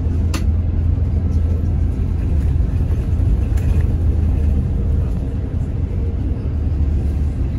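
Steady low engine rumble and road noise inside a moving bus's cabin, with a short sharp click about half a second in.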